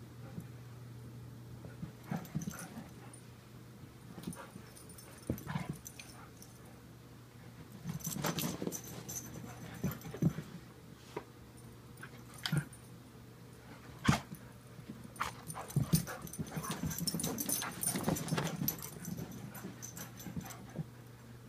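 Two dogs playing chase: irregular thumps, knocks and scrabbling of paws on a rug, busiest about eight seconds in and again near the end, with a sharp knock in between and a steady low hum underneath.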